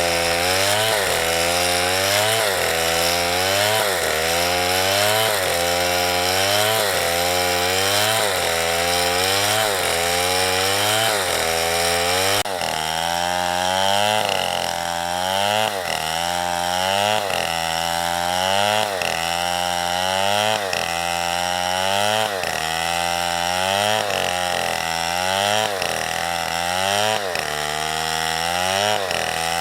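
Small chainsaw cutting wood, its engine pitch repeatedly climbing and dropping back about once a second. The sound changes abruptly about twelve seconds in.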